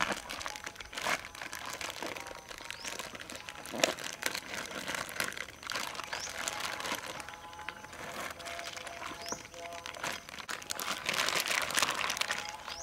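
Thin plastic bag crinkling and rustling as raw chicken drumsticks are tipped and shaken out of it into a woven bamboo basket. The crinkling grows loudest near the end.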